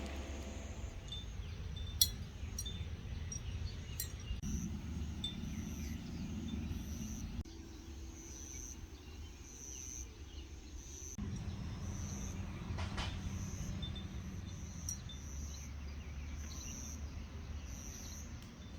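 Outdoor summer ambience: insects chirping in short repeated pulses about once a second over a low steady rumble, with a few sharp clicks. The background changes abruptly a few times.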